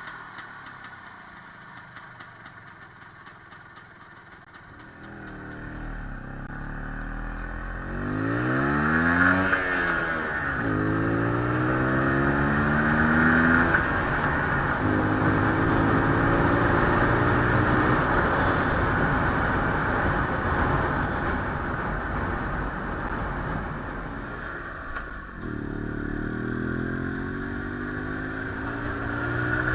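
IZh Planeta 5 motorcycle's single-cylinder two-stroke engine running with a knock whose cause is unknown. It runs low for the first few seconds, is revved up and back down, holds higher revs for a long stretch, drops back about 25 seconds in, then picks up again near the end.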